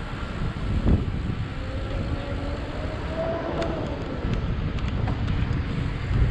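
Wind buffeting the microphone of a helmet-mounted camera on a moving bicycle, a steady low rumble with a couple of thumps.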